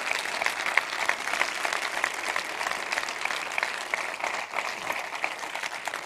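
Large audience applauding, many hands clapping together, the clapping thinning near the end.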